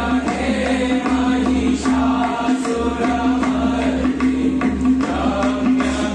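Devotional group singing in chant style, over a steady held drone from a harmonium, with tabla accompaniment.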